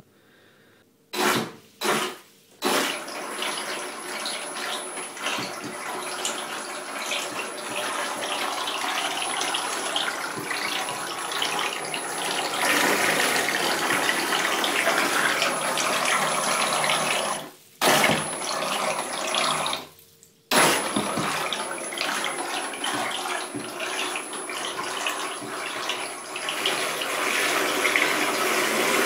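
Twin brushless motors of an RC speedboat spinning its propellers in a bathtub, churning and spraying the water. A few short throttle blips come first, then sustained running, with a thin high whine over the churning. It cuts out briefly twice in the later part before running on.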